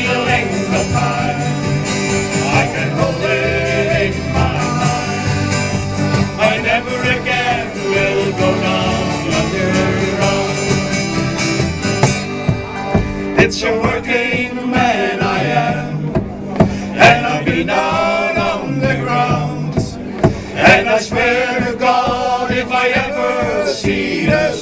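Folk band playing a slow ballad on acoustic instruments: a held, wavering melody line over steady chords.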